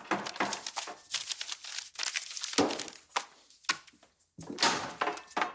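Irregular rustling and crinkling with small clicks and knocks, as of material being handled, with a few louder strokes towards the middle and near the end.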